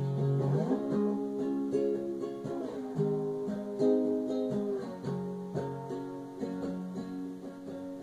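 Acoustic guitar played on its own: picked chords whose notes ring on and change about every second, in an instrumental passage between sung lines.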